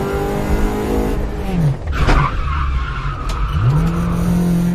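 Honda Civic's VTEC four-cylinder engine heard from inside the cabin, held at high revs, then dropping as the car slows for a bend about a second and a half in, with a short burst of tyre noise around two seconds. The revs climb back up a little before four seconds and hold steady.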